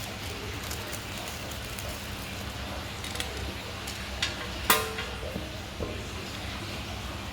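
Small clicks and taps of a pendant's packaging being handled and opened, with one louder, briefly ringing clink a little under five seconds in, over a steady low hum.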